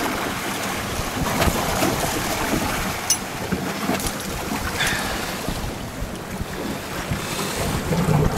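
Wind buffeting the microphone over the wash of sea water around a fishing boat, with a few brief sharp knocks.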